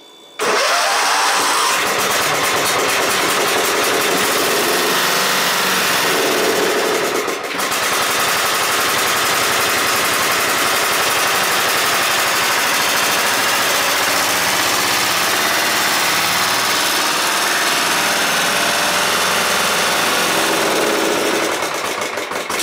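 Kohler engine of a Husqvarna CZ4817 zero-turn mower firing up about half a second in and running steadily and loudly, with a brief dip about seven seconds in.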